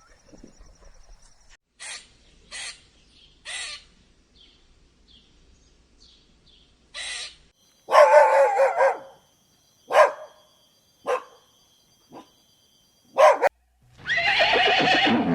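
An animal's calls: several short calls, then two longer pitched calls, one about eight seconds in and one near the end that cuts off suddenly.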